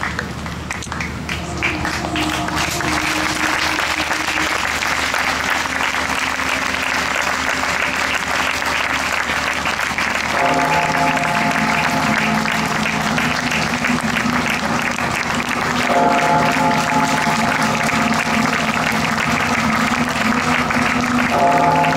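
Audience applauding steadily while music with long held notes plays; the music grows fuller about ten seconds in and again about sixteen seconds in.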